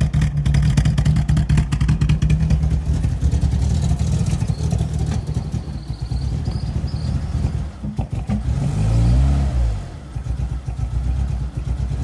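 Volkswagen car engine idling loud and choppy through the exhaust, with one quick rev and fall about nine seconds in. The cam-like, uneven idle comes from air leaks, not cams.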